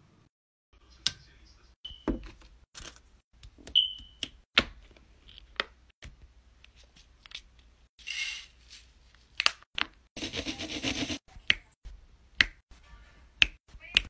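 Plastic clicks and taps of diamond-painting tools and containers. About eight seconds in comes a short rattle of resin drills being poured into a plastic sorting tray, then a longer rattling pour of about a second. Near the end, light clicks as a drill pen sets drills onto the canvas.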